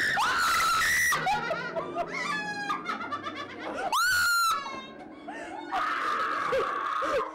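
Young women screaming in fright, several loud, high shrieks, with bits of nervous laughter in between.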